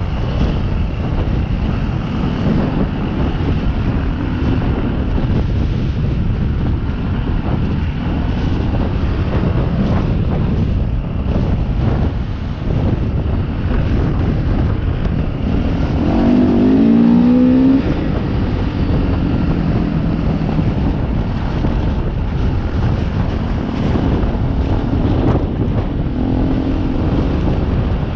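Dirt bike engine running under way, with wind rumble on the microphone. About sixteen seconds in the engine note rises as it revs up, then settles back.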